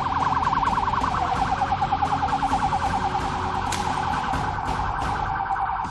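Police vehicle siren in a fast yelp, its pitch sweeping rapidly up and down several times a second, cutting off suddenly at the end.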